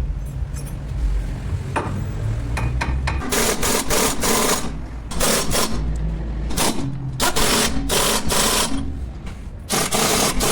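Rapid mechanical rattling of a tool working on metal in four bursts of one to two seconds each, over a steady low hum.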